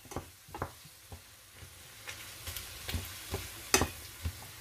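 Wooden spoon stirring chopped vegetables frying in oil in a stainless steel pot: a soft sizzle with scattered knocks of the spoon against the pot, the loudest about three-quarters of the way through.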